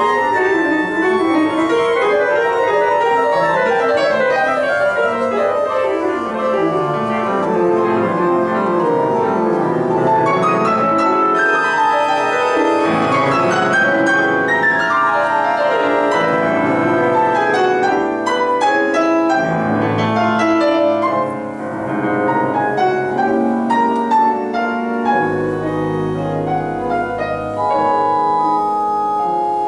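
Grand piano and pipe organ playing together: fast runs and chords on the piano over organ accompaniment, settling near the end into held chords over a low bass note.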